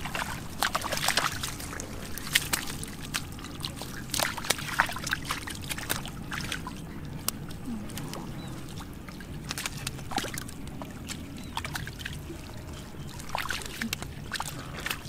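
Shallow muddy water sloshing and splashing as people wade barefoot and feel for fish by hand, with many short, sharp splashes and slaps scattered throughout.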